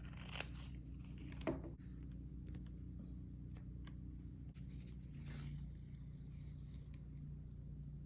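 Physical therapy tape being handled and pressed onto headphones: faint crinkling and a few short clicks, with a brief tearing sound about five seconds in, over a steady low hum.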